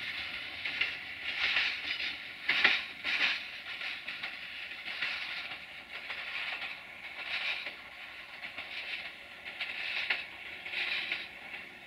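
Duewag Class 628 diesel railcar rolling away over curved station track and points, its wheels giving repeated high hissing screeches every second or so.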